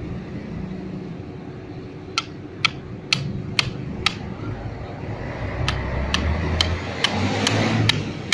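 Hammer striking a steel chisel to break up compacted crushed-stone base through the base plate of a sand-cone density test, digging the test hole. Five sharp metallic strikes about two a second, a short pause, then six more.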